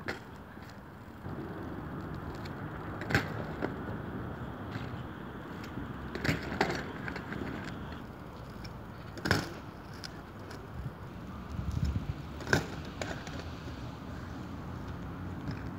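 Mountain bike tyres rolling on rough asphalt, broken by about five sharp clattering knocks as the bike lands from hops and drops to the pavement during failed barspin attempts.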